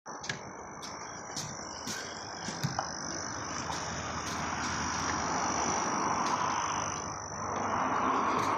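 A chorus of frogs calling with a steady, high-pitched insect trill over it. A few sharp clicks come in the first three seconds.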